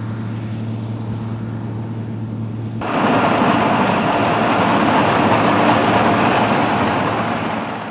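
Claas Senator 85 combine harvester running while harvesting wheat, a steady hum with a low drone. About three seconds in it turns suddenly louder and rougher, a dense mechanical rush.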